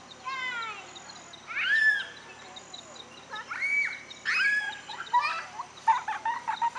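Birds calling by the water: a falling run of notes, then several loud arching calls, and a burst of short choppy notes near the end, over a faint steady high insect drone.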